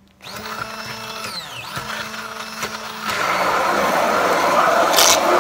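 Handheld immersion blender switched on and whirring in a steel bowl of eggs, sugar and oil. Its pitch drops about a second in before it picks up again, and from about three seconds in it churns louder as it blends the liquid batter.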